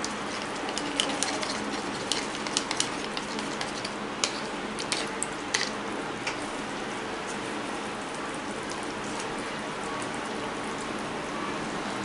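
Sauce simmering in a pan with a steady sizzling bubble, while a spoon stirs cornflour slurry in a small plastic bowl, clicking and tapping against it over the first half; after that only the simmering goes on.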